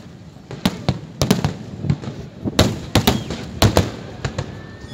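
Aerial fireworks shells bursting in an irregular string of sharp bangs, several coming in quick pairs and clusters. A thin, steady whistle starts near the end.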